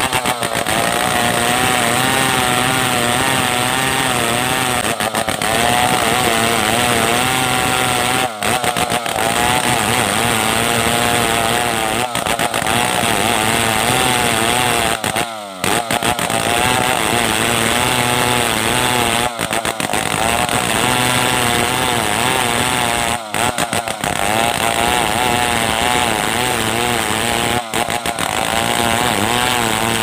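Stihl 070 two-stroke chainsaw running at high revs, ripping lengthwise along a log; its engine note wavers steadily as the chain bites, with brief dips a few times, the longest about halfway through.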